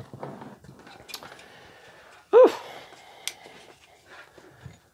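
Handling and rummaging noises as things are moved about, with a short squeal that rises and falls in pitch about halfway through and a sharp click about a second later.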